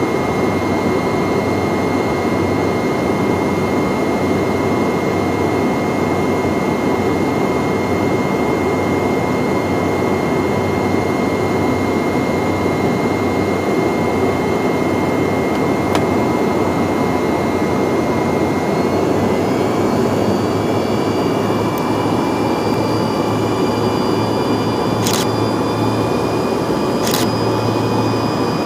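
Cabin noise of a Yakovlev Yak-40 in flight: its three rear-mounted Ivchenko AI-25 engines running steadily, a broad rush with a high whine on top. About two-thirds of the way through, the whine steps slightly up in pitch. Two short clicks come near the end.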